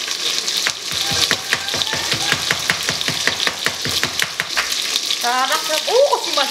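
Knife chopping quickly on a cutting board, about five strokes a second, over the steady sizzle of chicken frying in a pot. Near the end a voice rises and falls briefly.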